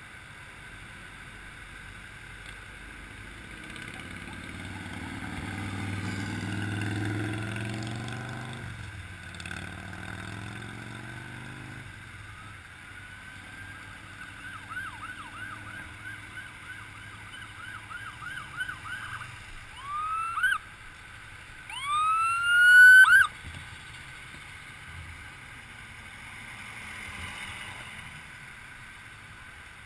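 Ambulance siren: a rising wail goes into a fast yelp for several seconds. Then come two short rising whoops, the second the loudest, which cuts off abruptly. Before the siren, a low vehicle engine rumble swells and fades.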